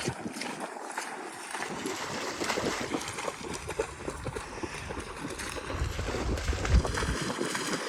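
Sloshing and splashing through shallow floodwater, a steady run of small splashes, with a louder low rumble about six to seven seconds in.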